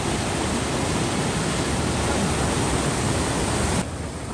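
Steady loud rush of fast, churning whitewater pouring past a concrete sluice pillar. It cuts off suddenly near the end, leaving a much quieter open-air background.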